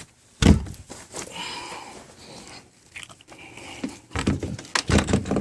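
A boat's cabin door being handled and opened: a heavy thump about half a second in, a rough rubbing scrape in the middle, then several knocks in quick succession near the end.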